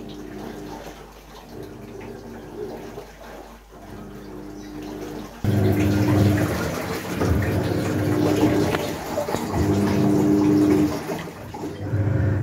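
Haier top-loading automatic washing machine agitating on its heavy wash: the motor hums in spells of a second or two, with short pauses as the pulsator reverses, over water sloshing in the drum. The sound gets suddenly louder about five and a half seconds in.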